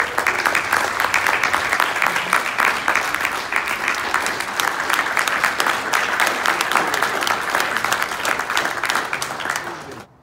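Audience applauding: many hands clapping in a dense, steady patter that cuts off suddenly near the end.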